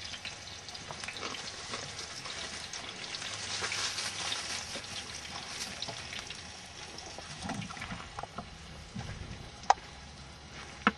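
Steady hissing noise with scattered faint crackles, and one sharp click near the end.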